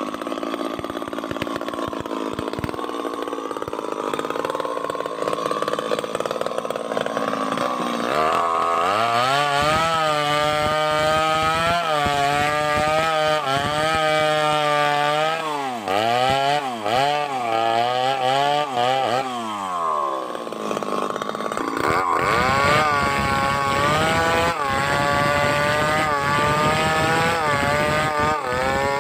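Two-stroke chainsaw running, throttled up to high revs about eight seconds in. The engine speed sags and recovers several times in the middle as the chain loads up in the cut, then it holds high revs again near the end.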